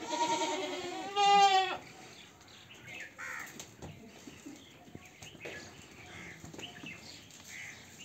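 Sirohi goats bleating: two loud, wavering bleats in the first two seconds, then only fainter calls and scuffling from the herd.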